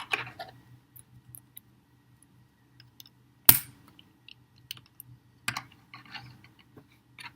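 Plastic LEGO pieces being handled and pressed together: scattered light clicks, with a sharp snap about three and a half seconds in and another about two seconds later.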